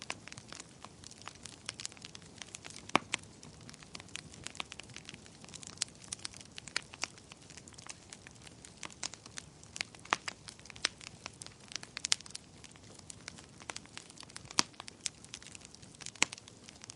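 Campfire of burning wood crackling: irregular sharp pops and snaps over a soft steady hiss, with a few louder snaps scattered through.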